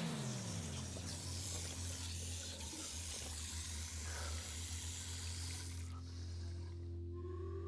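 Water running from a tap, a steady rush that stops about six seconds in. Under it is a low steady drone, with faint held tones coming in near the end.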